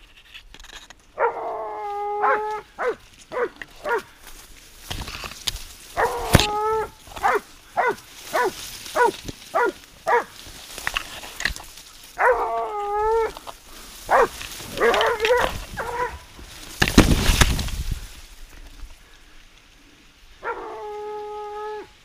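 Hunting dogs baying on the trail of a wild boar: drawn-out howling bays broken by runs of short, sharp barks. A loud rush of noise comes about seventeen seconds in.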